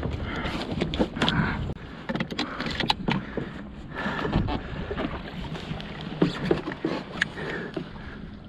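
Kayak paddling: paddle strokes splashing in the water, with scattered light knocks and clicks of gear and paddle against the kayak.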